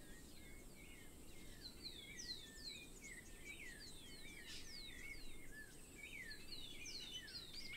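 Several birds chirping and singing faintly, many short falling whistles overlapping, over a low steady background rumble of outdoor ambience.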